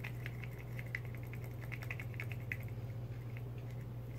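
Paintbrush stirring and dabbing in a small glass jar of paint, its handle and bristles making light, irregular clicks against the glass, over a steady low hum.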